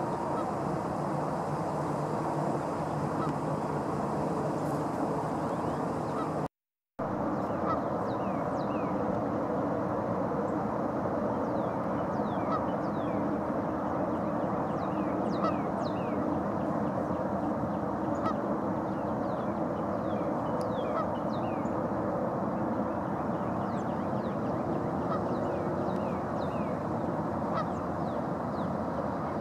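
A large flock of Canada geese honking together in a continuous din, with short high chirps scattered through it. The sound drops out for a moment about six and a half seconds in.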